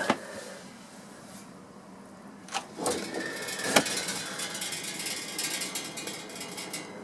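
Clicks and knocks from the motorhome cooker's oven door being opened, followed by a light rattling of its metal parts for a few seconds.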